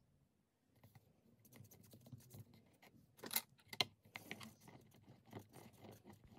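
Faint clicks and scratches of polymer clay pieces being handled and a clear acrylic roller rolled over them on a work tile, with a few sharper clicks about halfway through.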